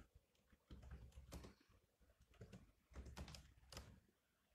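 Faint, irregular typing taps in small clusters, with soft thuds under the clicks: someone typing a web search.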